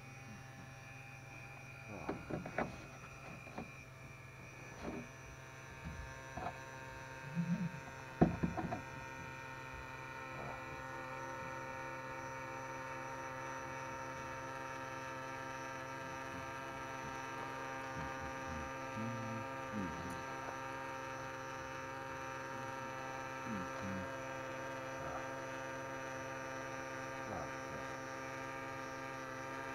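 Homemade quadcopter's motors and propellers running in a steady multi-tone hum, which grows louder about ten seconds in. A few knocks come in the first nine seconds, the loudest about eight seconds in.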